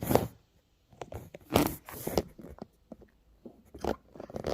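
Toy packaging being pulled and twisted in short, irregular crinkling and tearing bursts as someone tries to tear it open by hand.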